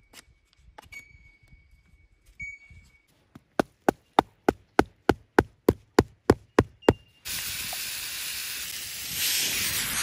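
A run of about a dozen sharp, evenly spaced knocks, roughly three a second. Then a steady hiss begins suddenly.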